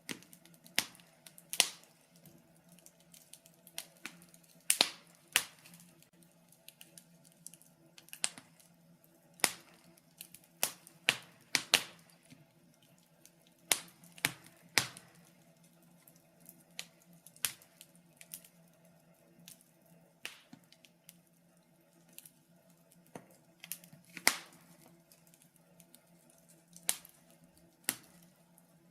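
Wood fire in a fireplace crackling: irregular sharp snaps and pops, a few every couple of seconds, over a faint steady hum.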